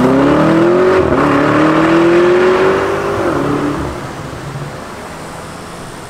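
Lamborghini Urus's twin-turbo V8 through a Fi Exhaust valvetronic catback, accelerating hard as the car drives away. The pitch climbs, dips briefly about a second in at an upshift, climbs again, then drops off and fades as the car recedes.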